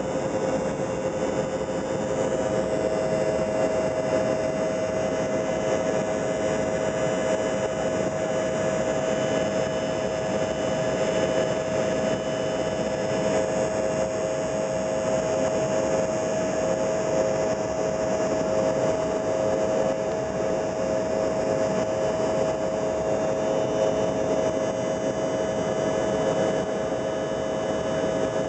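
Steady jet engine noise heard inside an airliner cabin in flight, with a steady hum-like tone running through the roar.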